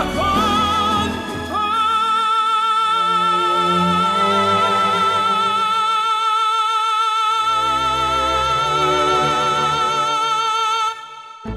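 Background music: a long, high held note with vibrato over a shifting low accompaniment, cutting off suddenly shortly before the end.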